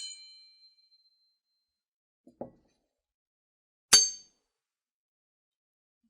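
Sword sound effects: the high metallic ring of a blade strike fades out over the first second or so. A faint short lower sound comes about two and a half seconds in, then a sharp clang of a steel blade about four seconds in, with a brief high ring.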